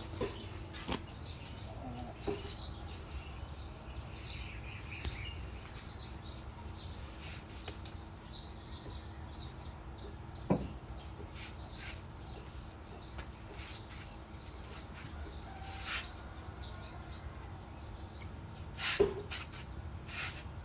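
Small birds chirping repeatedly in short calls over a low steady hum, with a few sharp clicks.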